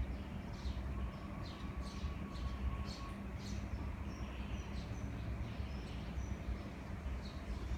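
Vintage 56-inch Sunwindy ceiling fan running with a steady low hum, while birds chirp repeatedly in the background.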